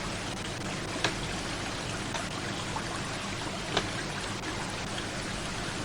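Steady hiss of falling or running water, with scattered faint ticks and two sharper clicks, about a second in and near four seconds.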